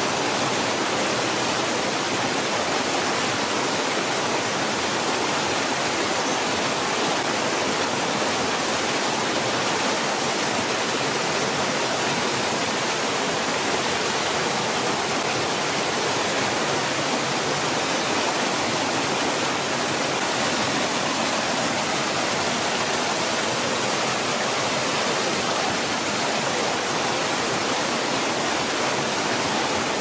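Water pouring steadily from several spouts of a large stone fountain, a constant even rush.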